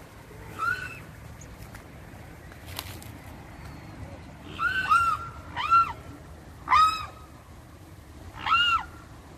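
Mute swan cygnets calling: short whistling calls that rise and fall in pitch, one about half a second in, then five more from about four and a half seconds on.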